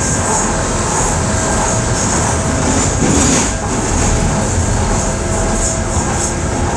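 Docklands Light Railway train running along the track, heard from inside the front car: a steady rumble of wheels on rail with a faint steady whine. The sound swells briefly about three seconds in.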